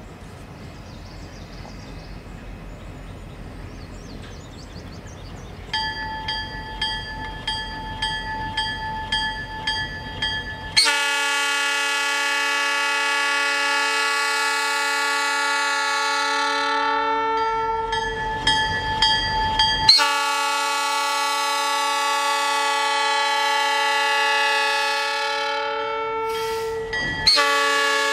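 GP38-2 diesel locomotive approaching with a low rumble, then ringing its bell at about two strokes a second and sounding its multi-chime air horn over it. The horn gives two long blasts and a short one, the start of the long-long-short-long grade-crossing signal.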